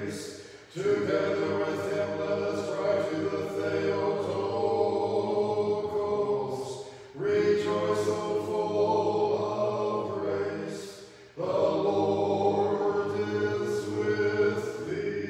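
Unaccompanied Orthodox liturgical chant sung during Vespers, in three long phrases with short breaks between them.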